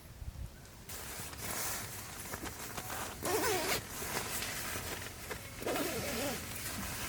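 A rasping, rustling noise starts abruptly about a second in and keeps going, with two short wavering squeaks partway through.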